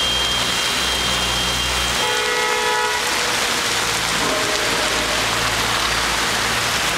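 Steady rush of floodwater running across a flooded road, with a low hum of stalled traffic underneath. A horn sounds for about a second, about two seconds in.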